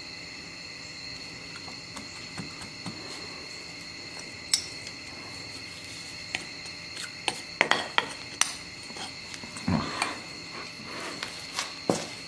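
Steel pliers clinking and scraping against a metal bowl and the freshly cast aluminum part as it is dug out of the casting sand, with a few sharp clanks, a cluster in the middle and more near the end. Crickets chirp steadily throughout.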